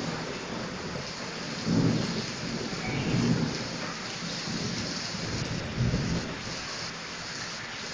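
Steady rain falling during a thunderstorm, with thunder rumbling low in several swells, the strongest about two, three and six seconds in.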